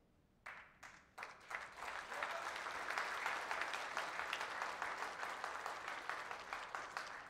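Audience applauding: a few scattered claps about half a second in, swelling to full applause within a couple of seconds, then slowly thinning toward the end.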